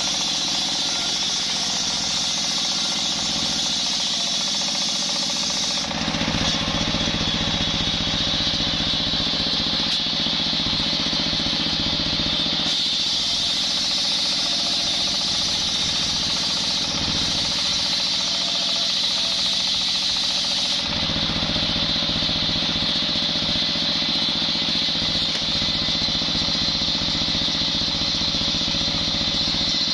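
Large belt-driven circular saw blade on a sawmill bench, running steadily and cutting lengthwise through a coconut palm log, with the machine's drive running beneath. The sound shifts a few times, at about 6, 13 and 21 seconds in.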